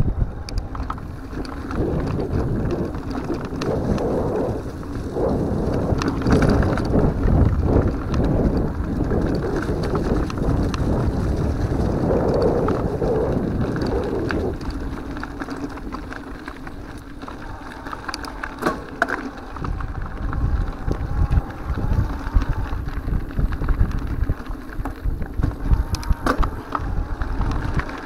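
Mountain bike riding over a rough dirt and grass trail: continuous rumble of the tyres on the ground, with frequent clicks and rattles from the bike and its handlebar fittings, and wind buffeting the microphone.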